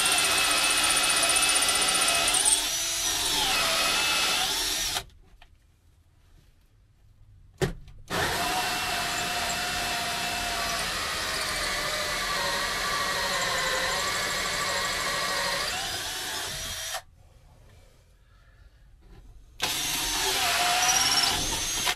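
Cordless drill turning a 1 3/8-inch hole saw, cutting a faucet hole through a wooden countertop. The drill runs in three stretches, stopping about five seconds in and again about seventeen seconds in, with a short blip between; its whine sags briefly in pitch about three seconds in as the saw bites.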